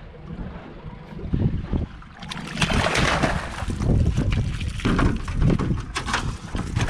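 A hooked longtail tuna splashing hard at the side of an aluminium boat from a little over two seconds in, then knocking and flapping against the aluminium hull and floor as it is brought aboard. Wind rumbles on the microphone throughout.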